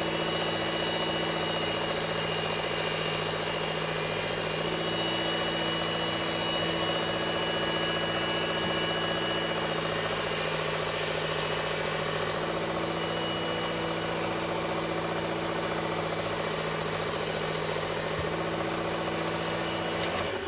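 Work Sharp Ken Onion Edition belt sharpener with the blade grinding attachment running steadily, its abrasive belt grinding an axe's edge: a steady motor hum under a grinding hiss that shifts a few times as the blade is worked. It is switched off near the end.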